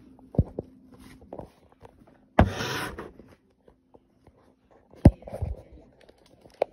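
Close handling noise as things are picked up and moved: a few sharp knocks and, about two and a half seconds in, a short, louder scraping rustle.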